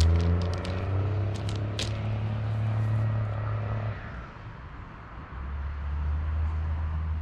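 Footsteps crunching on gravel over the first two seconds, over a loud low rumble that fades about four seconds in and comes back a second or so later.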